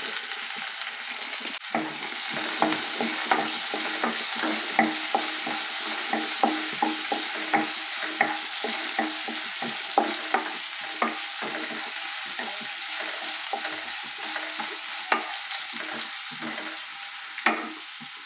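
Green chillies, garlic and sesame seeds sizzling in hot oil in a non-stick kadhai, with a wooden spatula stirring and knocking against the pan in short clicks about twice a second. The sizzle eases a little toward the end.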